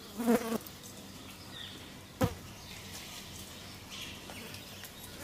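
Outdoor ambience with faint high bird chirps. A short voice-like call sounds just after the start, and a single sharp knock comes about two seconds in.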